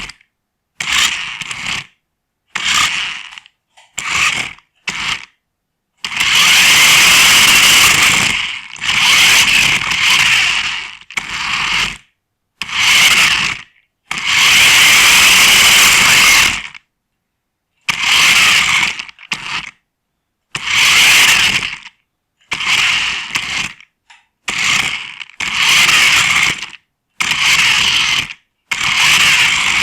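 Small RC car's electric drive motors and gearing whirring in stop-start bursts, mostly about a second long, with a few longer runs of two to three seconds. Heard up close from a camera riding on the car.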